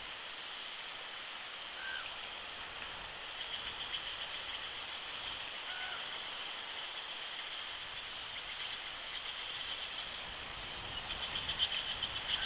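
Outdoor ambience of steady wind hiss, with short rising bird chirps every few seconds and a faint, rapid, high-pitched bird trill a few seconds in and again near the end.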